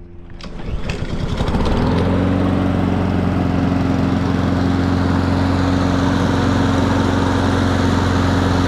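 Honda push mower's single-cylinder four-stroke engine coming up to speed over the first two seconds, then running steadily at full speed.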